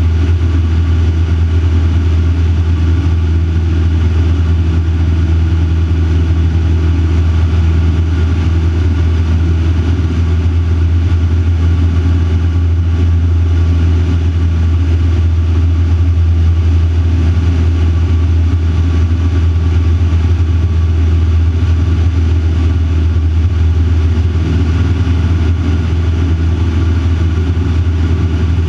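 Van's RV-4 light aircraft's piston engine and propeller droning steadily in flight, heard from inside the cockpit.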